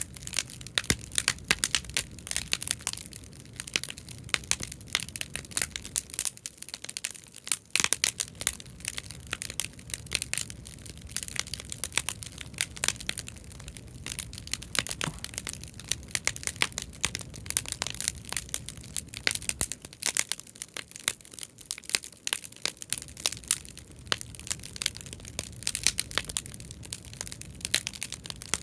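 Bonfire of scrap-lumber offcuts crackling and popping, a dense, irregular stream of sharp snaps over the low sound of the burning fire.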